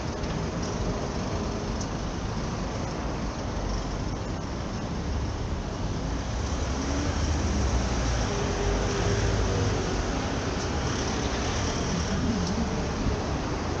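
Road traffic: vehicles passing on a city street, their low rumble swelling about halfway through.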